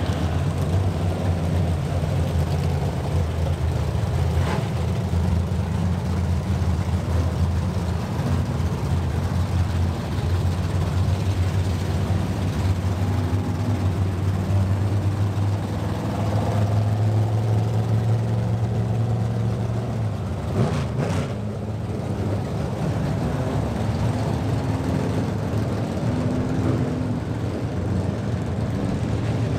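Engines of several dirt-track race trucks running together at steady, fairly low revs as the pack rolls around the track, with a slight change in pitch about halfway through.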